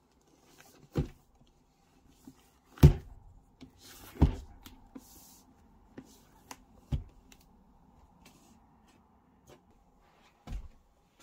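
Shrink-wrapped cardboard box set being handled and turned over: several dull knocks against the desk, the loudest about three seconds in and the last near the end, with brief crinkling of the plastic wrap between.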